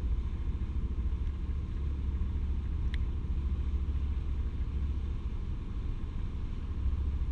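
Steady low rumble and wind noise on the open deck of a moving harbour ferry, with one faint click about three seconds in.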